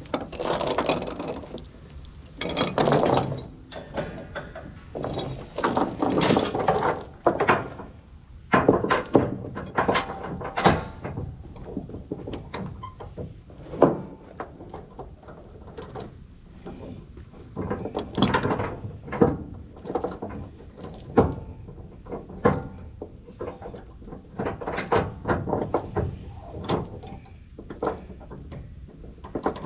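A long run of irregular clanks, knocks and scraping or dragging noises, some sharp and some drawn out, with short pauses between them.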